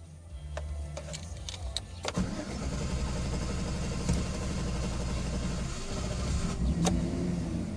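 2013 GMC Sierra's 5.3-litre Vortec V8 starting hard: a low rumble of cranking, then the engine catches about two seconds in and keeps running, with a short rise in pitch near the end.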